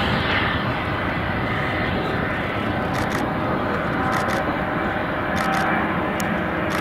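Boeing 747's jet engines running steadily as it taxis: an even, continuous rush of noise with a faint whine.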